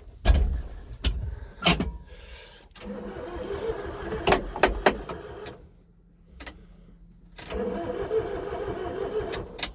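Honda Acty mini truck's starter cranking the engine in two tries with a pause between them, with a thump and a few clicks near the start; the engine never fires.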